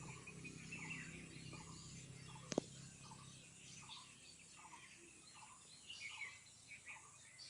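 Faint outdoor birdsong: a short call repeats about twice a second under busier, higher chirping. A low hum fades out about halfway, and there is a single sharp click about two and a half seconds in.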